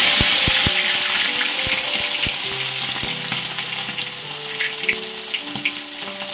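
Potato chunks frying in hot oil in a kadai: a loud sizzle that slowly dies down as the potatoes settle in the oil. A few light knocks of a steel spatula against the pan come through it.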